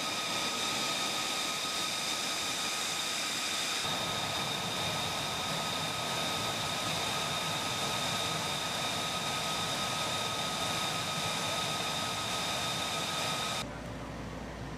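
Jet engine running steadily: a high turbine whine of several steady tones over a broad hiss. Near the end it cuts abruptly to a quieter, duller hum.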